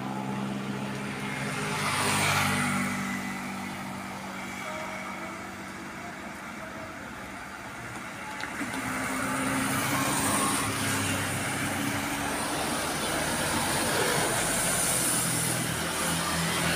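Road traffic on a wet road: vehicle engines running and tyres hissing on the wet asphalt. A vehicle passes about two seconds in, and louder engine and tyre noise builds from about halfway as more vehicles come by.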